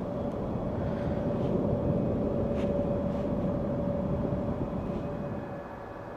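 Jet airliner engines passing: a rumble with a steady whine that swells to its loudest in the middle, then fades away near the end.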